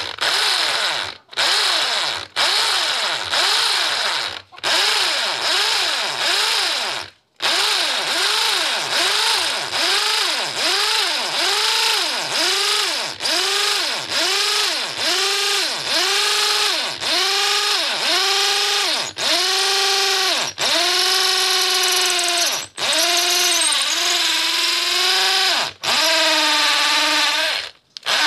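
Corded electric drill boring a long drill bit into a concrete block to make a guide hole. The motor's pitch rises and falls in quick repeated surges, with several brief full stops, and runs steadier near the end.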